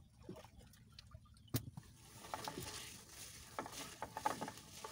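Wet fishing net being hauled hand over hand into an outrigger boat, water pattering and dripping off the mesh with small irregular crackles. A sharp knock sounds about a second and a half in.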